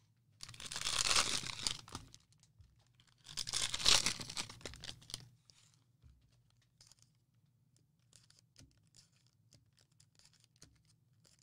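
Two tears of Prizm football card pack wrappers being ripped open, each lasting about a second and a half, then only faint scattered clicks and rustles.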